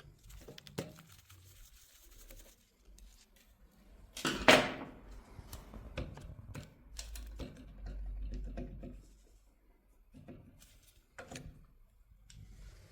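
Scattered clicks and knocks of hand tools and metal parts being handled while a car starter motor is taken apart, with one loud clatter about four and a half seconds in.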